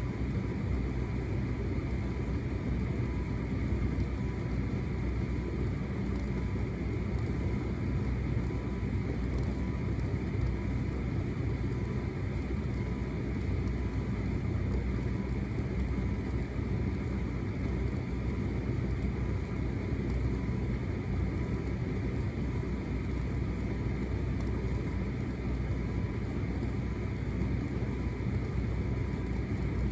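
Hotpoint SUTCD97B6PM condenser tumble dryer running a shirts cycle: the motor and fan give a steady low hum and rumble as the drum turns the clothes over, with a faint steady whine above it.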